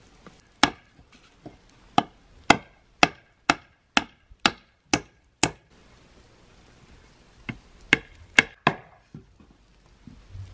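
Wood being chopped by hand, with sharp blade strikes into wood. There is a single blow, then a run of eight at about two a second, a pause, and four more.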